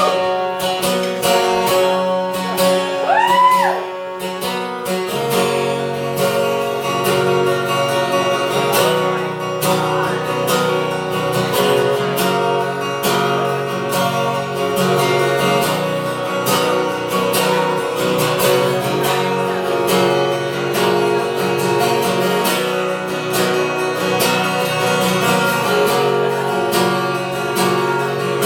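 Acoustic guitar playing a song's instrumental intro, strummed in a steady rhythm. A short tone slides up and back down about three seconds in, and the playing grows fuller with low notes from about five seconds in.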